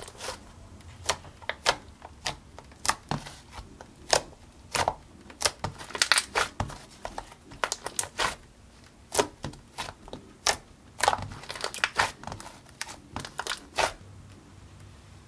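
Butter slime made with Model Magic and Japanese Daiso clay being squeezed and kneaded between the hands, giving irregular sharp clicks and pops. The clicking stops near the end.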